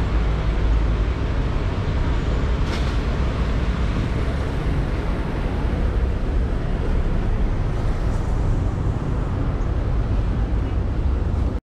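Urban street ambience of a car park with vehicle traffic: a steady low rumble that cuts off abruptly near the end.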